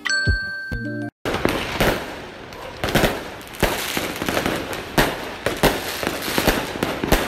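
A short chiming tune ends, and after a brief gap fireworks go off non-stop: a steady crackle with a sharp bang every second or so.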